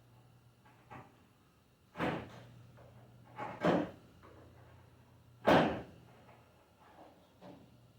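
Several sharp wooden knocks and clunks from a glued cabinet door that is being taken apart and cleaned of glue. There is one about two seconds in, a quick pair near three and a half seconds, and the loudest about five and a half seconds in.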